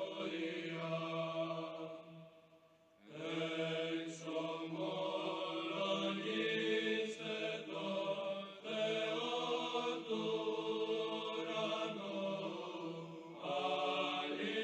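Choral chant in the background: voices singing slow, held notes over a low steady drone, stopping briefly about two and a half seconds in and then carrying on.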